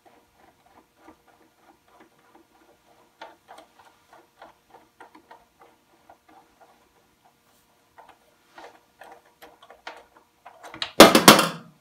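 Screwdriver turning the screw of a hose clamp on a washing machine's lower hose: faint irregular ticks, two or three a second, as the clamp is loosened. About eleven seconds in comes a brief loud scraping rustle as the hose is worked.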